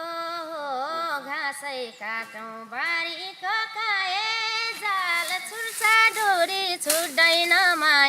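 A high voice singing a Nepali song, the melody gliding between long held notes.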